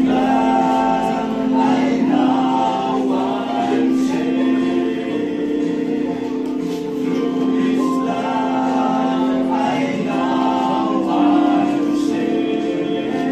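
A choir or group of voices singing a Christian hymn, with sustained held notes.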